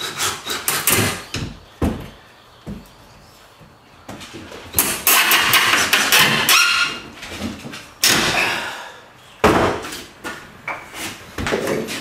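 Workshop assembly sounds: a DeWalt cordless drill driving screws into a pine frame in short bursts, with the frame knocking against the workbench. The longest, loudest burst comes about five seconds in and lasts roughly two seconds.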